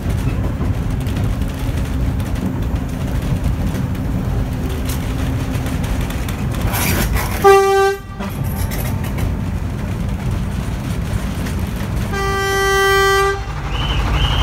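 Diesel locomotive running along the track with a steady low rumble. Its horn sounds a short single-note blast about halfway through and a longer blast of about a second near the end.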